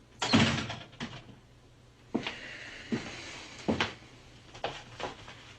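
Handling sounds in a small room: a sharp knock about a third of a second in, then lighter clicks and knocks, with a short scraping hiss starting about two seconds in.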